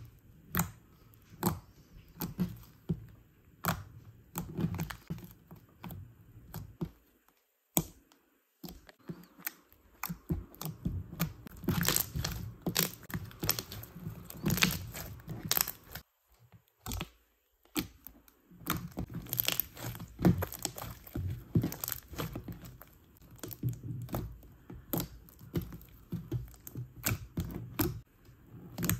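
Thick white slime being kneaded, stretched and pressed by hand: a steady stream of irregular sticky crackles and pops, broken by a couple of brief pauses.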